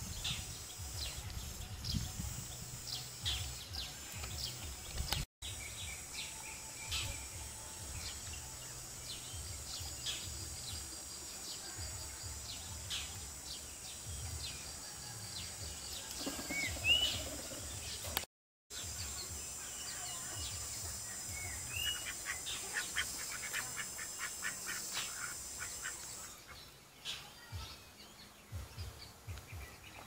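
Outdoor countryside ambience: small birds chirping and calling on and off over a steady high hiss. A fast run of ticking calls comes about 22 seconds in. The sound drops out briefly twice.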